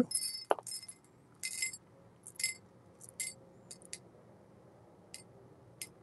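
Coffee beans dropped a few at a time into a ceramic dosing cup, giving short scattered clinks and rattles, about eight small bursts, as an 18 g espresso dose is weighed out.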